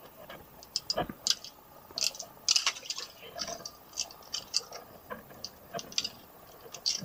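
Irregular wet squelches and light metallic clicks as pliers work a lure's hooks free from a freshly caught queenfish's mouth, with one duller knock about a second in.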